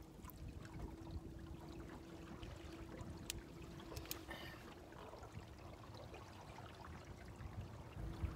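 Small waves lapping against the hull of a small metal fishing boat, with wind buffeting the microphone. A faint steady hum fades out about halfway through and returns near the end, and two sharp clicks come a little past the middle.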